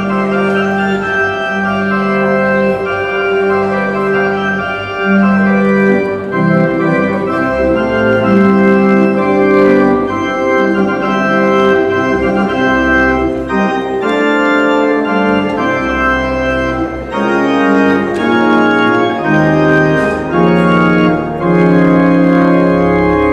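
Organ postlude at the close of a church service: full sustained chords that change about once a second over a low bass line.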